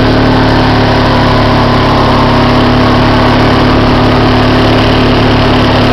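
Quad (ATV) engine running at a steady pace while the quad is ridden, with no revving.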